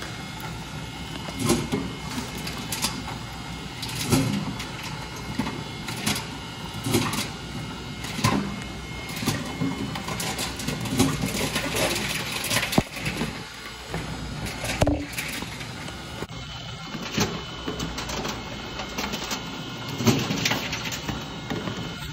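Reverse vending machine taking in plastic bottles one after another, its intake running with a steady hum and a clunk about every second and a half as bottles go in and are carried away.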